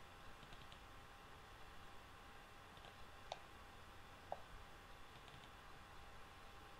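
Faint computer mouse clicks over quiet room tone: a few small ticks about half a second in, then single clicks roughly every second from about three to five seconds in.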